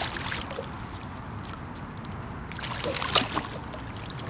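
Water sloshing and trickling around a kayak, with a short run of splashes about three seconds in.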